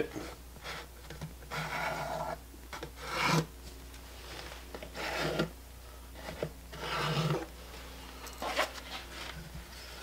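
Pencil scratching marking lines onto cypress boards, in about five separate scratchy strokes spread a second or more apart.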